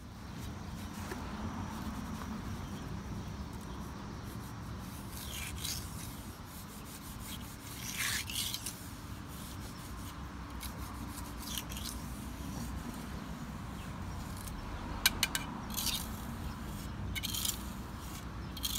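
Hand tool scraping and rubbing on a fresh cast stone repair patch as it is shaped: scattered scrapes, then a cluster of sharper scrapes and clicks near the end, over a steady low background rumble.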